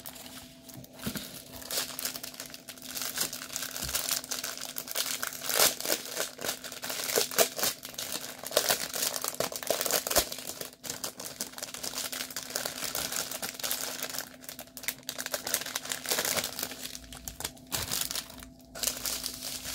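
Clear plastic packaging crinkling and rustling as it is handled and opened: the wrapped strip of diamond-painting drill bags being unwrapped and turned over, with irregular crackles and brief tearing sounds throughout.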